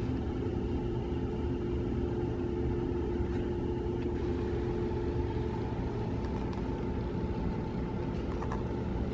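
A steady low mechanical rumble with a faint humming tone that fades out about halfway through.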